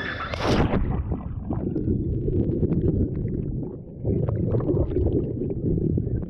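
A splash about half a second in as someone plunges into water, then muffled underwater churning and bubbling, dull and low, heard through the submerged camera's microphone.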